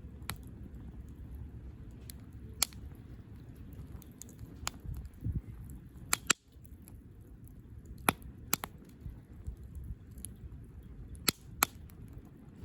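Wood campfire crackling: sharp, irregular pops, about nine of them, over a steady low rumble.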